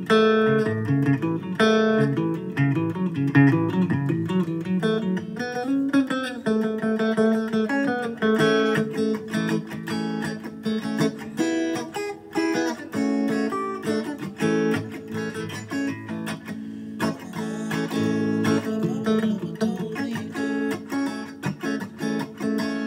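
Electric guitar, a Fender Stratocaster played through a Fender amplifier, picking a continuous run of notes and chords.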